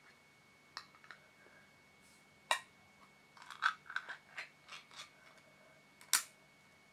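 A scattered series of small, sharp clicks and taps, about ten, in a loose cluster near the middle and a louder single one near the end, over a faint steady hum.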